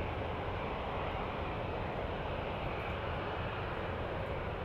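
Jet airliner engines running: a steady rushing noise with no rise or fall.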